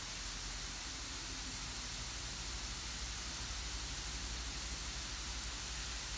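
Garden hose spraying a fine shower that hisses steadily as it falls on a mute swan and the gravel around it.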